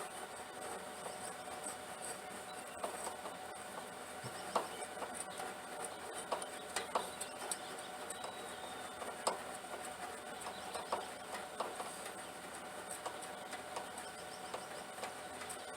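Scattered light clicks and taps of hand tools on metal, irregular and a few per second at most, over a faint steady hum.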